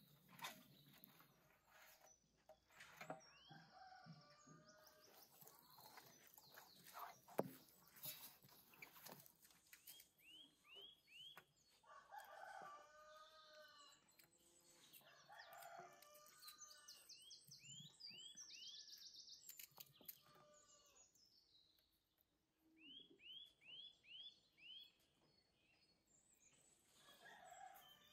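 Faint rooster crowing and hen clucking, with small birds chirping in quick runs of short falling notes. A few sharp knocks come in the first several seconds.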